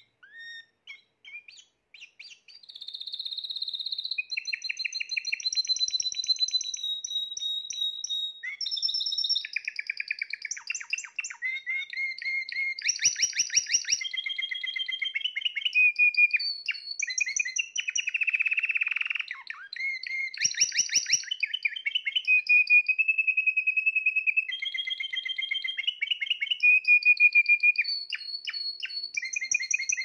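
Spanish Timbrado canary singing: a few short chirps, then a long, nearly unbroken song of rapid trills and rolls that keeps switching between higher and lower phrases.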